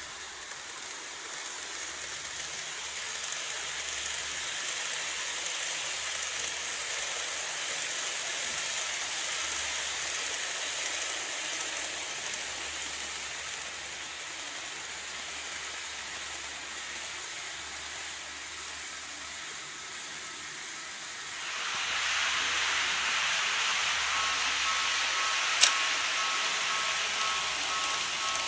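Model E351-series electric trains running on plastic track: a steady rolling whir and hiss that swells as the trains pass and turns louder about three-quarters of the way through. Near the end a steady two-tone beeping joins in, and there is one sharp click.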